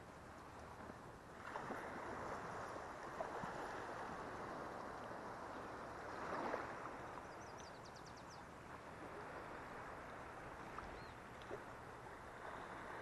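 Shallow seawater swishing and lapping as legs wade through the flats, swelling about six seconds in. A short run of high chirps follows soon after.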